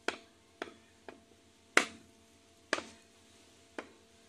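Sharp metal knocks, six at irregular intervals with the loudest about two seconds in, from work on the opened crankcase of a Kipor 186 diesel engine as its crankshaft is knocked loose.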